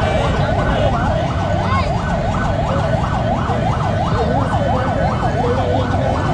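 An emergency vehicle's siren in a fast yelp, its pitch sweeping up and down about two and a half times a second, over a steady low rumble.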